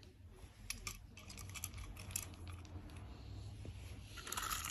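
Small die-cast metal toy trains being handled on a bed: a few light clicks and clinks in the first couple of seconds, then a brief scuffing noise near the end.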